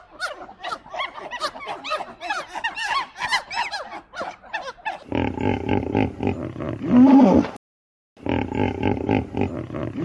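High, quickly rising and falling squeals and chatter from macaques for about five seconds. Then a hippopotamus grunts and bellows, with a loud low call about seven seconds in and another at the end.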